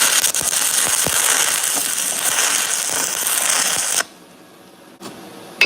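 Stick welding arc crackling steadily for about four seconds, then cutting off abruptly as the arc is broken. A single sharp metallic tap comes near the end.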